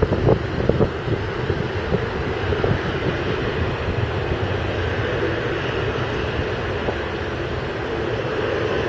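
Airbus A330's twin jet engines running at low taxi power as the airliner rolls along the runway: a steady roar, with a faint whine coming in about halfway through. Wind buffets the microphone in the first second.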